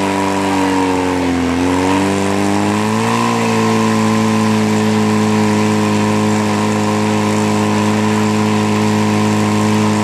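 Portable fire pump's engine running under load, driving water through two hose lines to the nozzles. Its pitch sags about a second in, climbs back near three seconds, then holds steady.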